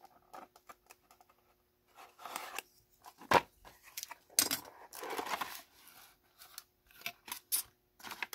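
Utility knife slitting the tape seal of a small cardboard box, then the box being opened: cardboard scraping and rustling, one loud sharp click about three seconds in, and several lighter clicks near the end.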